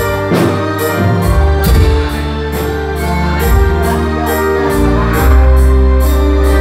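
Loud music played through a PA sound system for a sound check: a steady beat of about two ticks a second over heavy bass and long held chords.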